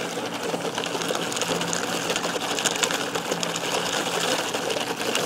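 Air blown through a straw into an iced Starbucks drink, bubbling in a rapid, steady rattle.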